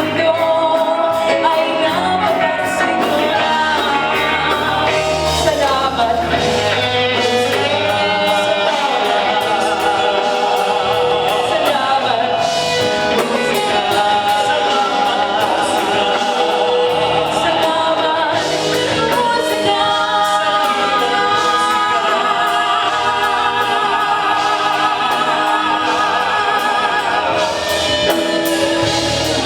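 Live music: a vocal group singing in harmony over instrumental backing.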